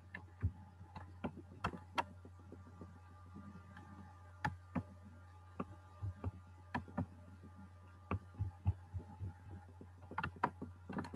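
Irregular soft clicks and light knocks, from computer mouse clicks and handling, over a steady low electrical hum.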